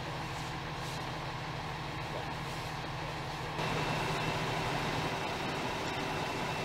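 Vehicle engines idling steadily with a low hum. About three and a half seconds in, the sound gets a little louder and a faint steady high tone joins it.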